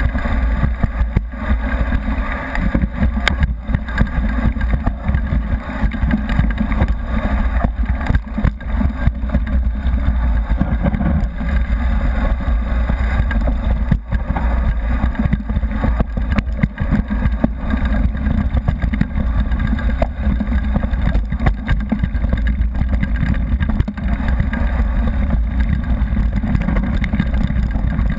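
Wind rushing over an action camera's microphone on a fast mountain-bike descent down a gravel forest road, with constant rattling and clicking from the tyres and bike.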